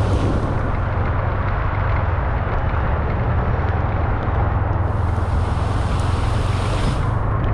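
Steady low rumble of a car driving on a wet road, with a hissing rush that swells about five seconds in and lasts a couple of seconds.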